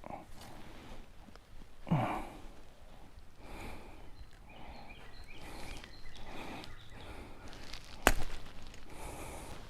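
Footsteps outdoors, roughly one step a second. About two seconds in there is a short low grunt that falls in pitch, and just after eight seconds a single sharp click.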